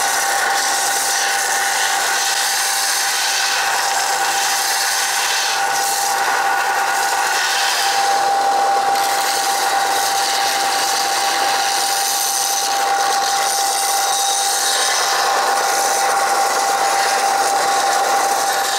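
Bench belt sander running, with a steady motor whine, as a 304 stainless steel tube pie cut is pressed onto the belt: a continuous grinding hiss of metal being sanded, flattening the cut face and deburring its edge. The hiss dips briefly a couple of times.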